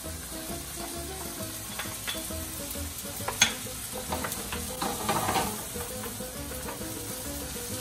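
Diced tomatoes, chicken and garlic sizzling in a frying pan as they are stirred with a wooden spoon, with scattered scraping clicks of the spoon against the pan and one sharp tap about three and a half seconds in.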